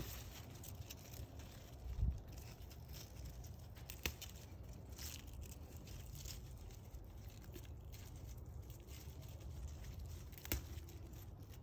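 Thai basil sprigs being picked by hand: leaves rustling, with a few sharp snaps of stems breaking, one near the end, over a low steady rumble.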